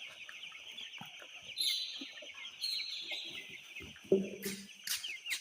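A flock of chickens peeping continuously in a dense high chatter, with a louder low cluck about four seconds in.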